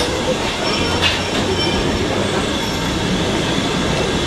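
Steam-hauled passenger train pulling out past the platform: a steady rolling rumble of the coaches' wheels on the rail, with hissing steam and a thin, high wheel squeal over it.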